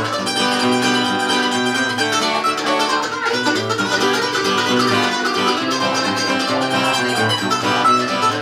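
Acoustic guitar strumming the rhythm while a mandolin picks the melody of a bluegrass tune.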